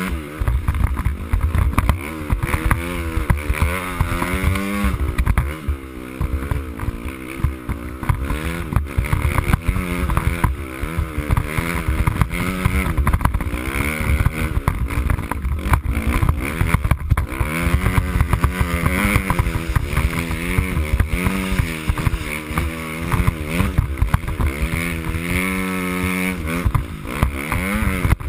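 Dirt bike engine being ridden, its revs rising and falling again and again as the throttle opens and closes.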